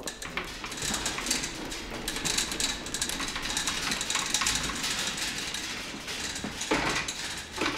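Hand-cranked mobile archive shelving: the shelf units roll along their floor rails as the hand wheel is turned, a continuous rattling rumble with small ticks. A couple of knocks near the end as the units come to a stop.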